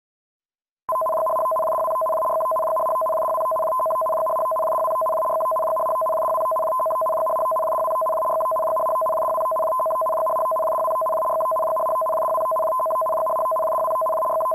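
Broadcast emergency alert tone for a major tsunami warning: a steady electronic tone of two pitches sounding together, starting about a second in and held unbroken.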